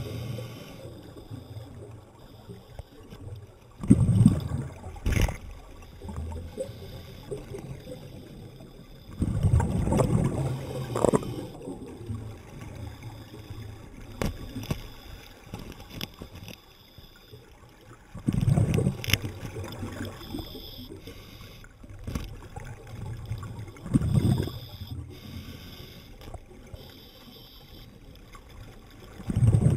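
Underwater water noise, with gurgling bubble bursts about every five to six seconds over a low steady background, typical of a diver exhaling through a scuba regulator.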